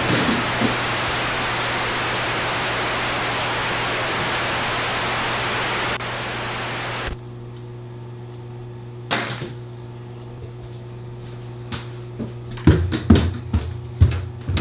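Loud, steady television static hiss that cuts off suddenly about seven seconds in, leaving a low steady hum. Several sharp knocks follow near the end.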